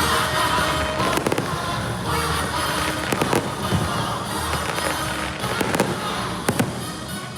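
Fireworks going off in a rapid string of pops and bangs over the fireworks show's soundtrack music.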